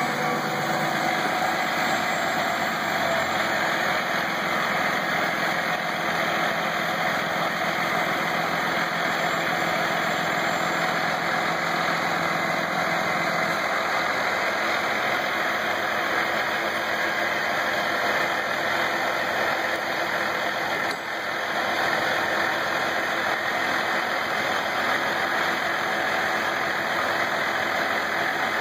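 Utility bucket truck's engine idling steadily while its boom is up. A low hum in the mix stops about halfway through.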